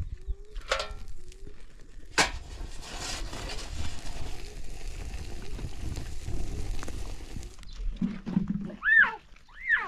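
Two sharp knocks in the first few seconds, then a stretch of steady hiss. Near the end a fowl gives two short calls that rise and fall.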